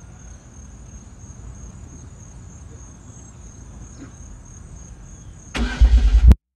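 A steady high-pitched tone over a low rumble, then about five and a half seconds in a loud burst as the Hyundai Genesis Coupe's 3.8-litre V6 is cranked and fires on a cold start, cutting off abruptly.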